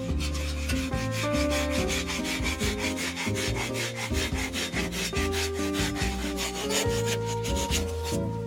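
Background music with a bass line and held notes over a fast, even scraping or shaking rhythm of about six or seven strokes a second.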